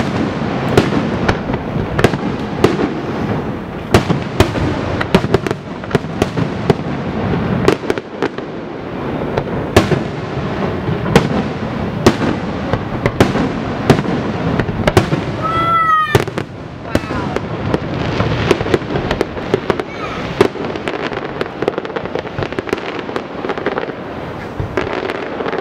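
Aerial fireworks display: a rapid, unbroken barrage of bangs and booms, several a second, over a constant rumble. A brief high-pitched tone sounds about sixteen seconds in.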